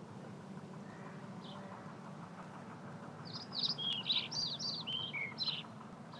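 A songbird singing one short phrase of quick, high chirping notes, several of them dropping in pitch, starting about three seconds in, with a single faint chirp earlier. Under it runs a steady, faint low background noise.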